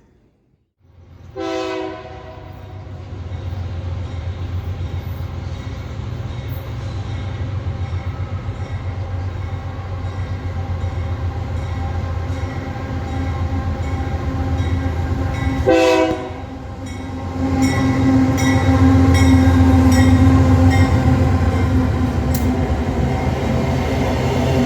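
Diesel locomotive horn sounding two short blasts, one about a second in and one about two-thirds of the way through. Under it the locomotive's diesel engine runs with a steady low rumble that grows louder near the end. Faint regular clicking of wheels over the rail joints comes in with it.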